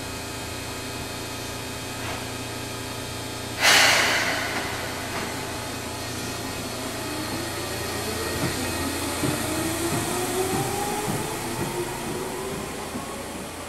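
Seibu 2000 series electric train departing: a sudden loud hiss of air about three and a half seconds in, then the traction motors whining and rising steadily in pitch as the train gathers speed, with scattered knocks from the wheels.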